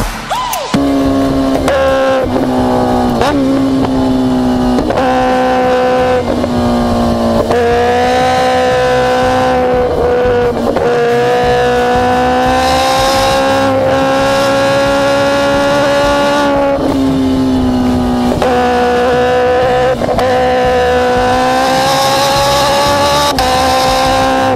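Kawasaki Ninja H2's supercharged inline-four engine under hard acceleration, its pitch climbing and dropping sharply at a run of quick upshifts. It then holds a steady high note at speed, with another run of shifts about two-thirds of the way through.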